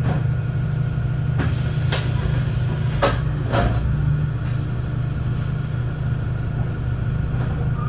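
Wright Streetlite single-deck bus's engine running with a steady low drone, with four sharp knocks or rattles between about one and four seconds in.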